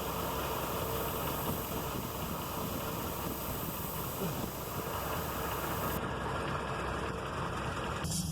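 Car engine idling with a steady hiss of escaping air as the brake pedal is pressed: a vacuum leak in the brake booster, through a torn hose or split rubber seals inside it. The sound changes abruptly near the end.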